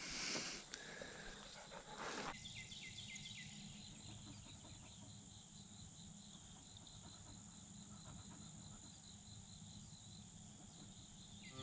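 Faint, steady chirring of crickets and other insects in a field, with a couple of brief rustles in the first two seconds.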